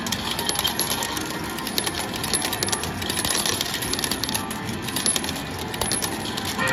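Metal game medals clattering and clinking in rapid, irregular clicks on a Fortune Trinity 2 medal-pusher machine.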